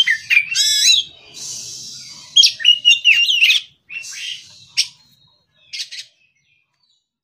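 Oriental magpie-robin singing: loud, varied phrases of quick rising and falling whistles mixed with scratchy notes. The song stops about six seconds in.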